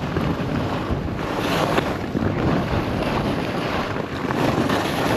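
Wind rushing over an action camera's microphone as a skier heads downhill in a snowstorm, a steady buffeting roar.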